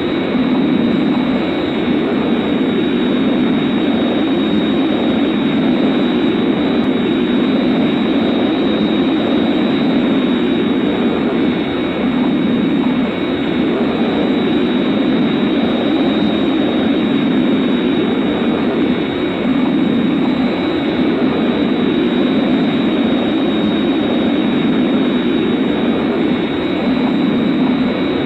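Thunderbird 1's in-flight sound effect: a steady jet-like roar with a thin high whine over it, swelling slightly every few seconds.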